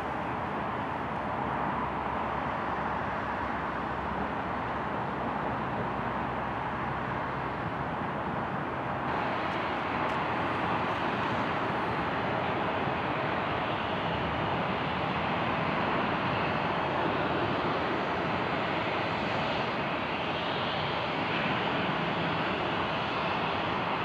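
Jet engines of a taxiing Boeing 737 airliner: a steady rushing hum that grows louder and brighter about nine seconds in.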